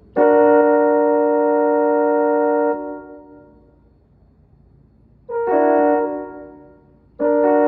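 A multi-note train-horn chord played on an electronic instrument's French horn voice (sound number 85). It comes as a long blast of about two and a half seconds, a short blast about five seconds in, and a third blast starting near the end.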